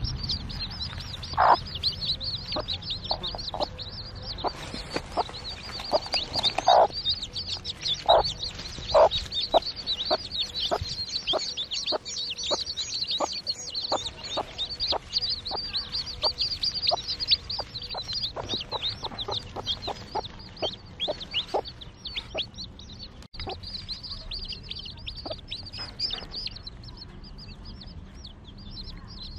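Newly hatched Fayoumi chicks peeping continuously and shrilly while a broody hen clucks to them in a steady rhythm, about two short clucks a second, which fade out a little past two-thirds of the way in.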